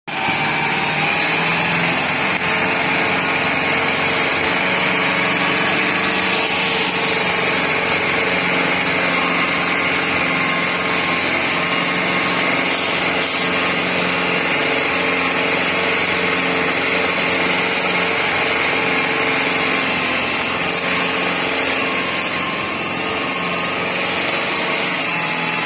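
Kubota MU5501 tractor's four-cylinder diesel engine running steadily under load while pulling a heavily loaded sugarcane trailer.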